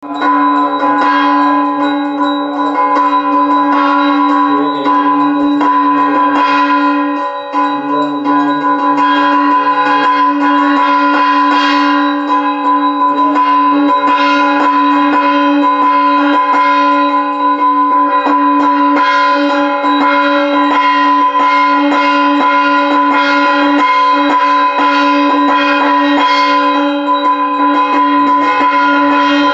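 Brass puja hand bell rung continuously, a loud, steady metallic ringing with fast repeated strikes. It starts suddenly and does not let up.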